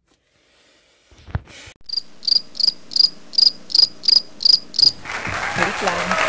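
Cricket chirping sound effect, the comic 'crickets' gag for a long awkward wait: about nine evenly spaced high chirps, roughly three a second, after a short thump. Near the end it gives way to loud outdoor noise.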